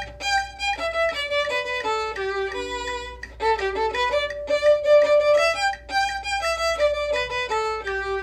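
Violin played with the bow at a fast tempo, quarter note = 168: a quick run of short notes moving up and down, with a brief break about three seconds in and a longer held note near the end.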